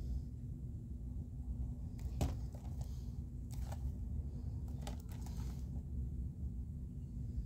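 Hands handling a Blu-ray case in a cardboard slipcover: a few light clicks and scrapes over a steady low hum, the sharpest click a little over two seconds in.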